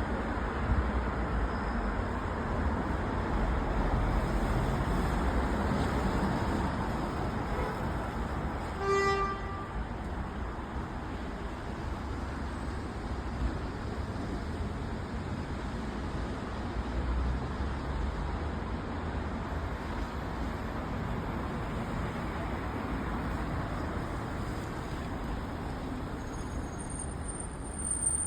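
Steady city street traffic noise. A single short car horn toot sounds about nine seconds in, and a brief high-pitched squeal comes near the end.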